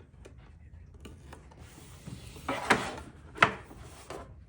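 A sealed trading-card box and its packaging being handled and opened. There are light clicks, then two short loud scraping rubs about two and a half and three and a half seconds in.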